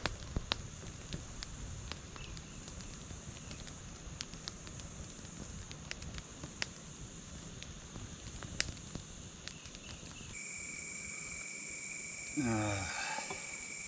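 Campfire crackling, with scattered sharp pops. About ten seconds in it gives way to a steady chorus of crickets, and near the end there is a short falling-pitched voice sound.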